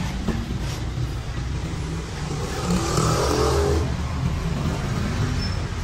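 Street traffic, with a motor vehicle passing close by and loudest about three seconds in.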